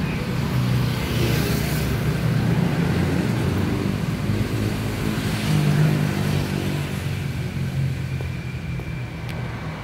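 A motor vehicle engine running, with street traffic noise. It swells about a second in and again around five to six seconds in, then eases off near the end.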